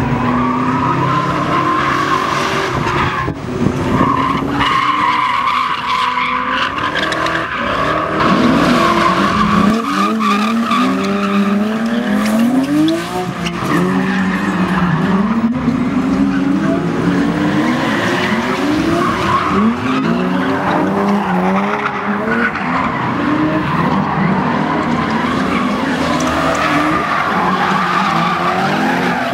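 BMW drift cars sliding sideways. Their engines rev up and down again and again as the throttle is worked, and their tyres squeal through the slides.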